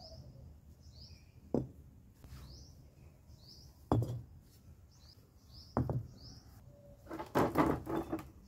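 Concrete interlock paving blocks clunking as they are handled and set down: single knocks about one and a half, four and six seconds in, then a clatter of several near the end. A small bird chirps over and over in the background, short high notes under a second apart.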